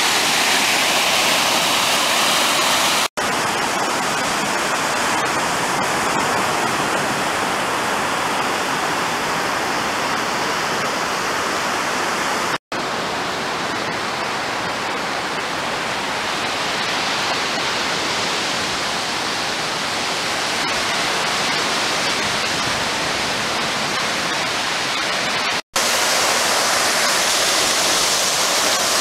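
Sea surf breaking and washing up a sandy beach: a steady rushing noise of waves without letup, interrupted three times by split-second dropouts where the recording cuts.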